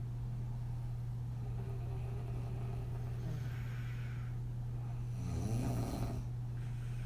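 A sleeping woman breathing on her back: a slow breath in about three seconds in, then one breath blown out through slack lips in a soft puffing snore a little after five seconds in. A steady low hum runs under it.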